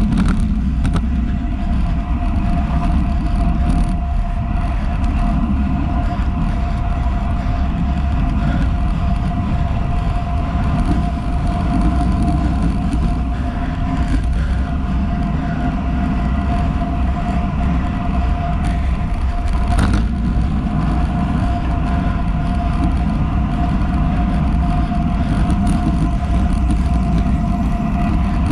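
Road bike riding along, heard through a handlebar-mounted action camera: steady wind and road rumble with tyre noise, a thin steady whine running through it, and a single click about twenty seconds in.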